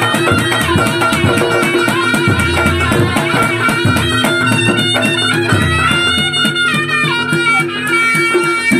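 Reog gamelan music: a shrill, reedy wind melody, the reog's slompret, wavers over fast drumming and steady, repeated metallic gong-chime strokes.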